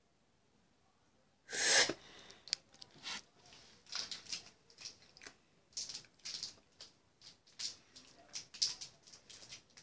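A sour-candy wrapper torn open with one loud rip about a second and a half in, then crinkled and handled in quick, irregular rustles.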